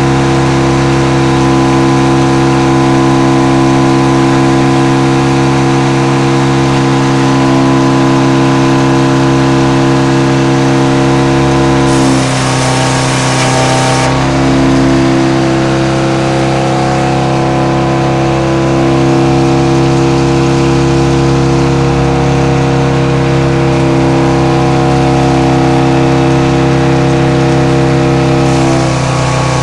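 Frick 00 circle sawmill running under engine power, a steady engine note that holds its pitch. About twelve seconds in, a hiss rises for about two seconds while the low part of the note dips, and it comes again near the end.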